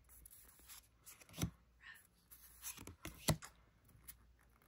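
Pokémon trading cards being flipped through in the hand, a few soft flicks and taps as the cards slide off one another.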